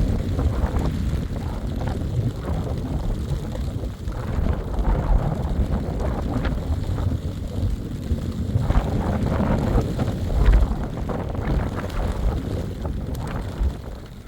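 Strong wind buffeting the microphone in gusts, a loud, uneven low rumble.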